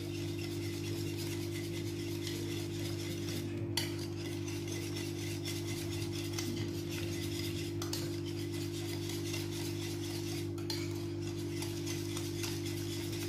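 Wire whisk beating a thick egg and cream quiche filling in a glass dish: continuous fast scraping with light ticks of the wires against the glass, over a steady low hum.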